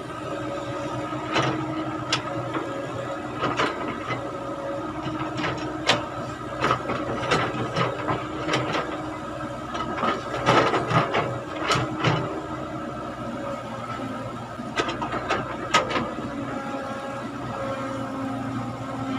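Caterpillar hydraulic excavator's engine running steadily while it digs, with repeated sharp knocks and clanks as the bucket works in stony soil, thickest in bursts in the middle of the stretch and again near the end.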